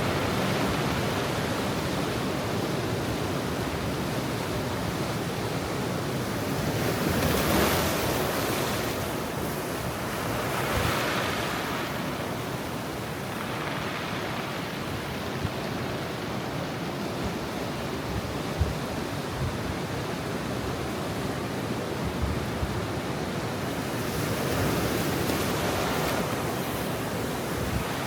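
Ocean surf at high tide washing against a rocky shore, a steady rush of water that swells louder as waves break, about a quarter of the way in, again a few seconds later, and near the end.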